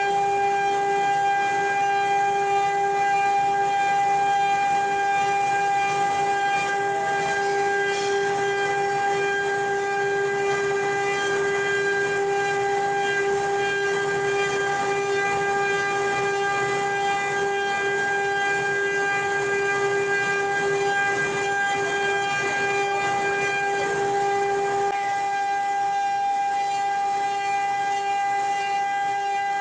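The spindle of a four-axis CNC wood-carving machine running, with a steady high whine over a hiss.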